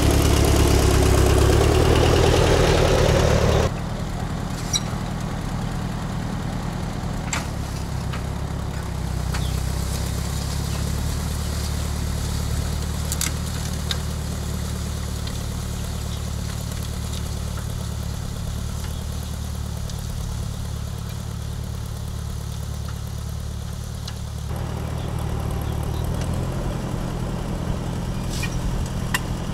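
1955 Ford 650 tractor's four-cylinder gasoline engine running steadily while pulling a disc harrow through garden soil. It is loud at first, drops suddenly about four seconds in, and grows louder again near the end.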